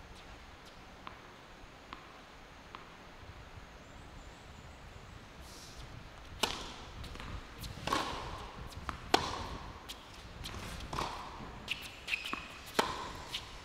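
A tennis ball is bounced a few times on a hard court before a serve, faint ticks about a second apart. The serve is struck about six seconds in, then a rally follows with sharp racket hits and ball bounces about once a second.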